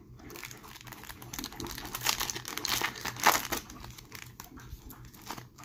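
Foil wrapper of a Tim Hortons Upper Deck hockey card pack being torn open and crinkled by hand, a dense crackle with sharp peaks around two and three and a half seconds in.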